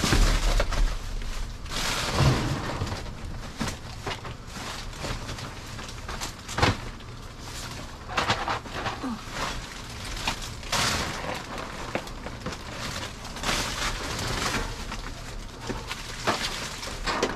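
Rummaging through garbage bags in a dumpster: plastic bags crinkling and rustling in irregular bursts, with a few dull thuds as items are shifted, mostly near the start.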